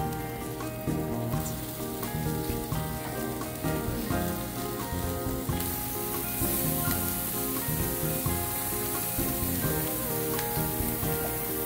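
Skewered beef and gizzard suya sizzling on a hot grill, a hiss that grows louder about halfway through, under background music with held, changing chords.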